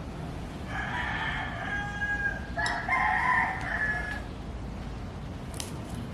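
A rooster crowing: two long calls back to back, the first starting about a second in and the second following at once, over steady low background noise.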